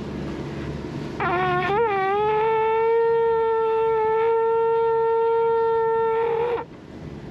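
Small conch shell blown as a horn through a hole cut into its tip. It sounds one long note that wavers and rises in pitch at first, then holds steady for about five seconds before stopping.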